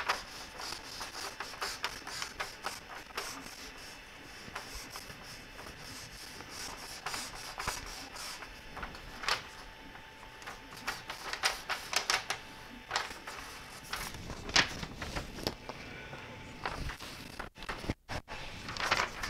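A sheet of paper rustling and scraping as it is slid back and forth under the 3D printer's nozzle to set the bed level, with scattered small clicks and taps from handling. The sound cuts out twice, briefly, near the end.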